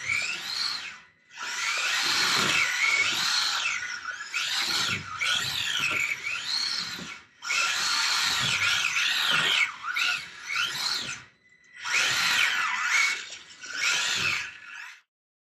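Kyosho Mini-Z radio-controlled car's small electric motor and drivetrain whining in repeated bursts, the pitch rising and falling with the throttle as the car slides on rubber tyres across a hardwood floor. It goes quiet briefly three times and stops just before the end.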